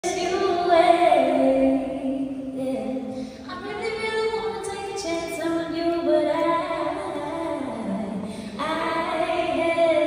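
A woman singing solo through a theatre's PA system, long held notes that slide up and down in pitch, heard from the audience floor.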